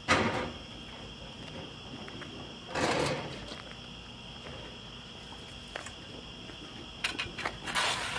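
Crickets chirping steadily in a high, even chorus. Brief rustling noises cut in at the start, about three seconds in, and near the end.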